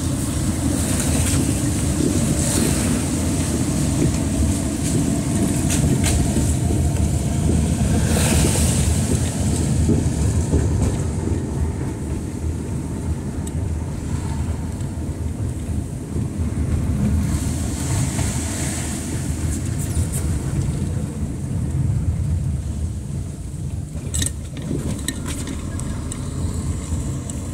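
Car driving on a wet street, heard from inside the cabin: a steady low rumble of engine and road noise, with a few brief hissing swells of tyres on the wet pavement.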